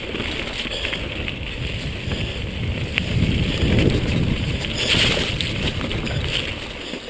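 Mountain bike descending a wet, rocky trail at speed: tyres rumbling over stones and splashing through water running down the track, with knocks as the bike hits rocks, a sharp one about three seconds in.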